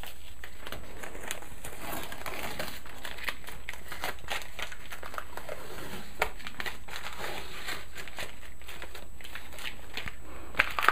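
Masking tape being peeled off the edges of a watercolour painting and crumpled into a ball: an irregular, crackling rustle of tape and paper.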